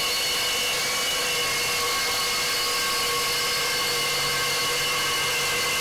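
Reciprocating saw with a Milwaukee Torch Nitrus carbide-tooth blade cutting through quarter-inch-thick steel pipe: a steady, unbroken sawing noise with a ringing whine in it.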